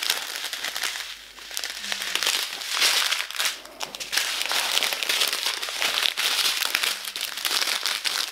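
Small plastic bags of round diamond-painting drills being handled and shuffled through, the plastic rustling in bouts with brief lulls about a second in and again near four seconds.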